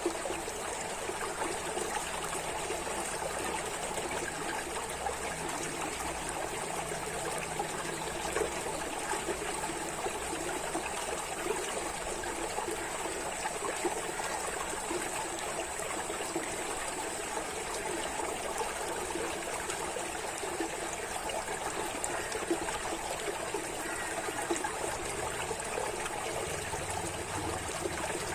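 Running water trickling in a steady, unbroken flow.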